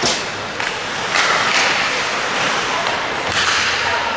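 Ice hockey in play: skates scraping and carving on the ice, with sharp clacks of sticks and puck at the start, about a second in and again past three seconds.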